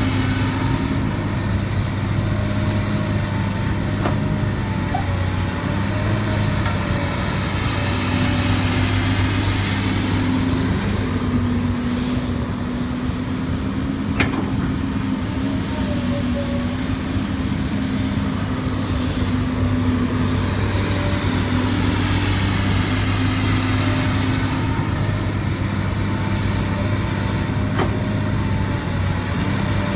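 Diesel engines of heavy earthmoving machinery running steadily, their pitch dipping and rising a little now and then. A single sharp click sounds about halfway through.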